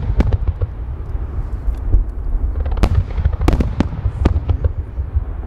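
Starmine fireworks barrage: a continuous low rumble of shells launching and bursting, broken by sharp cracking bangs, several of them close together about three to four seconds in.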